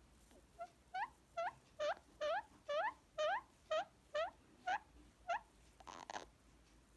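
Indian ringneck parrot giving a run of about ten short squeaky calls that each rise in pitch, about two a second, followed near the end by one brief harsh rasp.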